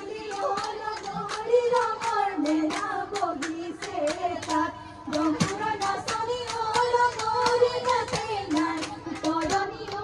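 Women singing a Jeng Bihu folk song, with sharp hand claps keeping a brisk beat of about three or four a second.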